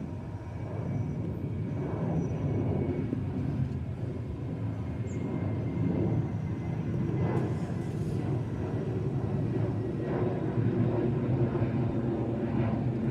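Boeing 737-800 jet airliner flying overhead as it climbs out after takeoff, its twin CFM56-7B turbofans giving a steady low rumble that slowly grows a little louder.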